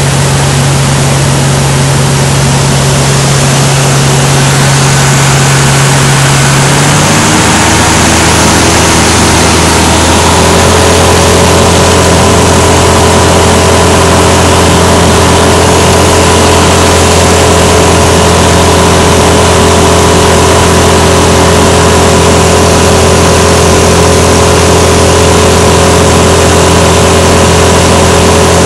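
Light aircraft's piston engine and propeller, heard inside the cabin: a loud, steady drone over a wash of rushing air. About seven seconds in the engine note drops lower, then settles and holds steady for the rest.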